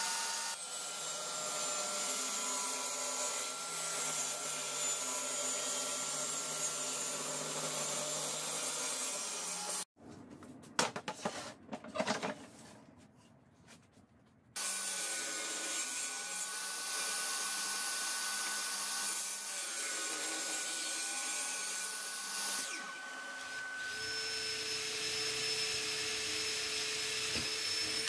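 Shop vacuum running steadily with a table saw cutting wood. The noise breaks off for about four seconds in the middle, leaving only light knocks and rubbing, then resumes, and its tone changes over the last few seconds.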